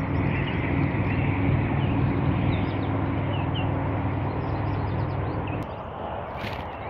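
Fishing reel being cranked to retrieve an inline spinner, a steady whirring hum that stops suddenly about five and a half seconds in, followed by a single click. Faint bird chirps in the background.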